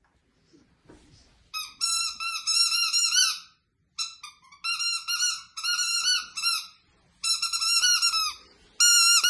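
Small dog chewing a squeaky rubber ball toy, squeezing out quick runs of high, wavering squeaks. Four runs of squeaking, the first starting about a second and a half in, with short pauses between them.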